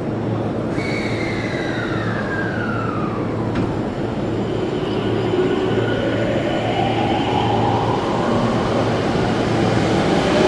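E231-800 series electric train pulling away from a standstill, its VVVF traction inverter (the so-called 'ghost inverter') whining. The whine glides downward over the first few seconds, then a lower tone rises steadily as the train gathers speed, over the steady hum of the motors.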